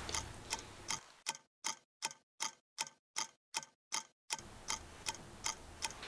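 Clock ticking evenly, about two and a half ticks a second, with dead silence between the ticks for a few seconds in the middle.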